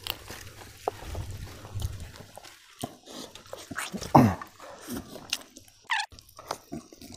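Close-up eating sounds of a man eating chicken curry and rice by hand: wet chewing, lip-smacking and small clicks, with two short falling whine-like sounds about four and six seconds in.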